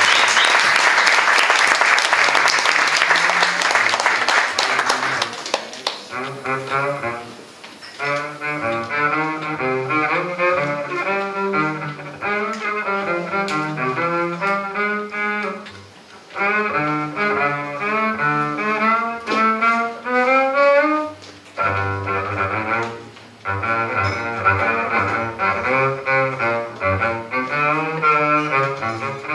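Audience applause for the first five seconds or so, then an upright double bass playing a solo line of rapid notes in a live jazz set, with a few brief pauses.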